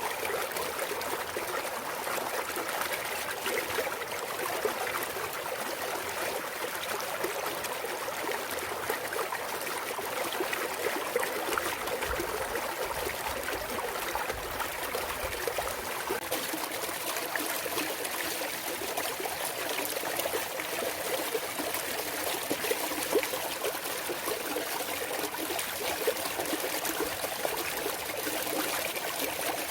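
Clear mountain stream water flowing and trickling over rocks, a steady babble with fine splashing detail.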